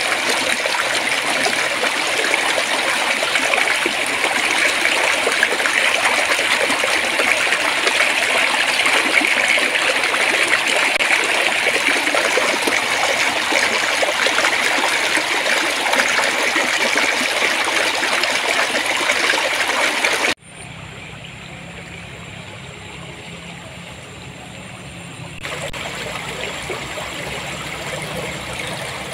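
Babbling stream, clear water trickling and burbling over stones in a steady rush. About twenty seconds in it cuts off abruptly to a much quieter, low sound, and a softer running-water sound comes back near the end.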